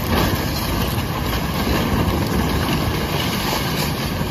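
A loud, steady rushing noise with no clear tone or rhythm.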